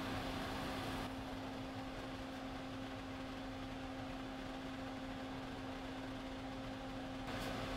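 Steady low mechanical hum with one constant pitch, under a faint hiss that drops away about a second in and comes back near the end.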